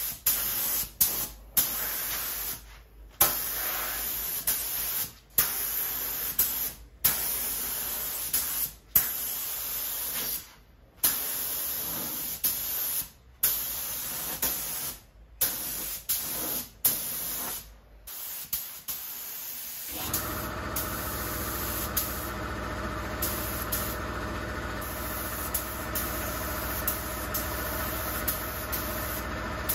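Gravity-feed spray gun spraying undercoat: bursts of air hiss as the trigger is pulled and released, a second or two each with short gaps. About two-thirds of the way through, a steady machine hum with a droning tone starts and runs under the spraying.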